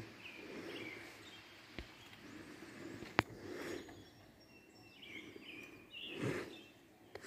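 Faint outdoor ambience with birds chirping on and off. A few sharp clicks cut through it, the loudest about three seconds in.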